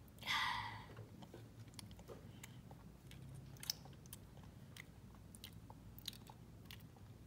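Faint, scattered small clicks and taps of miniature plastic dollhouse pieces, a tiny cup and toy figures, being handled on a toy table, with a brief breathy rustle about half a second in.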